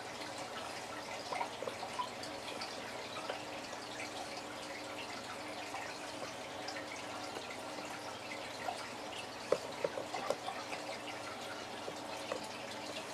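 Hot soldering iron melting notches into a plastic tackle-box divider: a faint scatter of small crackles and pops over a low steady hum, with a few louder pops about ten seconds in.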